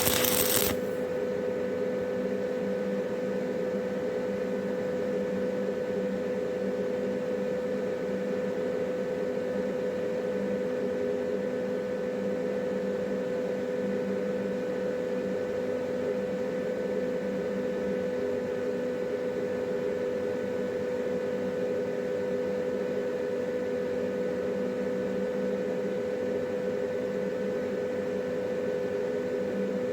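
Arc-welding machine humming steadily, after a brief crackle of a stick-welding arc that stops under a second in.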